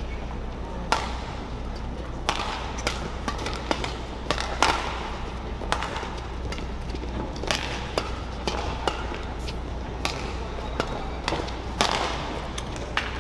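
Steady murmur of a badminton hall broken by scattered sharp knocks and claps. Near the end a rally is under way, with racket strikes on the shuttlecock and shoe squeaks on the court.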